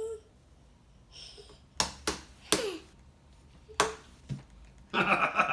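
Glitter slime being squeezed and pressed back together in the hands, giving four sharp smacking pops, two of them trailing into a short falling squelch.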